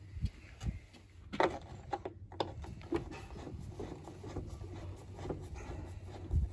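Hand screwdriver driving a screw through a wooden sign into a wooden stable door, with scattered knocks and light scraping as the sign is held against the boards; the loudest knock comes about a second and a half in.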